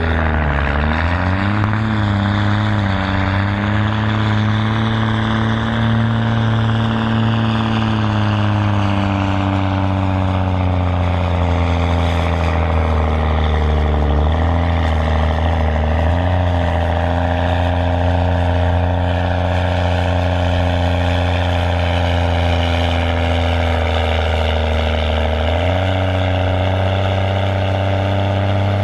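Case IH Puma tractor's six-cylinder diesel engine working hard under full load as it pulls the weight-transfer sledge. It runs loud and steady, with its pitch dipping about a second in and sagging slowly through the pull, then stepping up briefly near the end.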